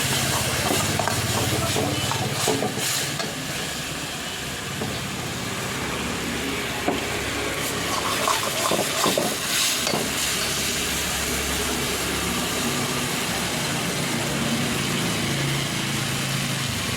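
Chicken frying in a pan with a steady sizzle and hiss, a ladle stirring and scraping against the pan in a few knocks, most of them between about 8 and 10 seconds in. A steady low engine hum runs underneath.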